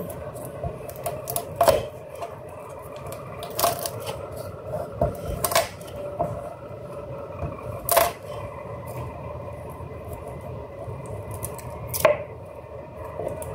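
A chef's knife knocking on a plastic cutting board as garlic cloves are cut and peeled by hand: about half a dozen sharp, widely spaced knocks over a steady faint hum.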